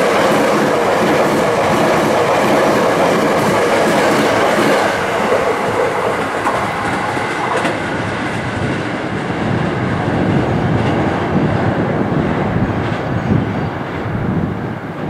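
Hankyu Kyoto Line electric train running past the platform, a loud steady noise of wheels and motors on the track that eases off over the last few seconds.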